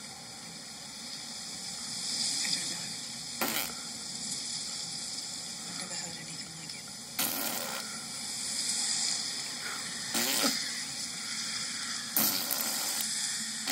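Steady rushing of wind and flowing water, heard through a TV speaker, with four short, sudden louder swells.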